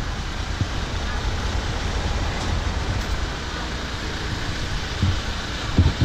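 Motorcycle running at low speed, a steady low rumble mixed with wind buffeting the camera microphone, with a few low knocks near the end.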